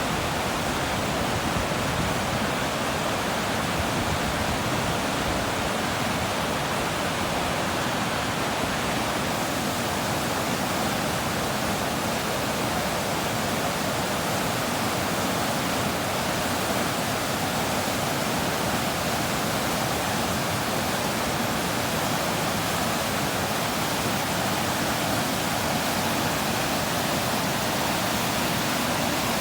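Clear stream water rushing steadily: a continuous even hiss-and-rush with no breaks.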